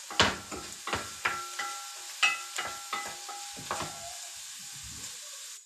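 Onions and flour sizzling in a pan on the stove while a utensil stirs and knocks against the pan, about a dozen ringing clinks in the first four seconds over the steady sizzle.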